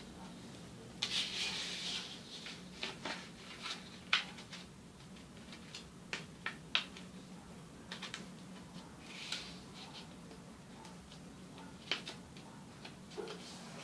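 A sheet of origami paper being folded and creased by hand: irregular rustling and sliding, with short sharp ticks as folds are pressed flat and a louder rustle about a second in. A faint steady low hum sits underneath.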